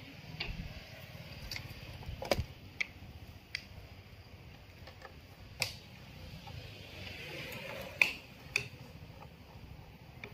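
Scattered sharp clicks and light knocks from handling a digital TV set-top box's cover as it is pressed and shifted on the workbench, the loudest about two seconds in and again near eight seconds.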